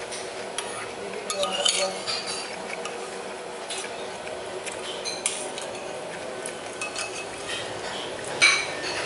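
Metal spoon clinking and scraping against a bowl while scooping up the last noodles and broth: scattered clinks, the loudest one near the end.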